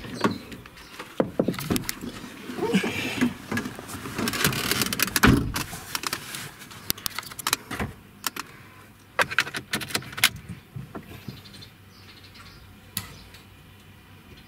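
A person getting into a car: door and seat handling with rustling and keys jangling, then a scattered run of sharp clicks and taps in the cabin.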